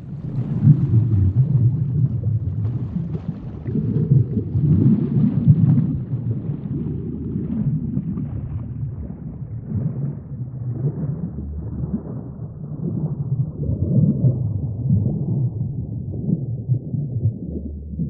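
Sinking-underwater sound effect: a continuous low rumble with irregular bubbling gurgles that swell and ebb. The sound grows steadily duller as the higher sounds fade away, like sinking deeper.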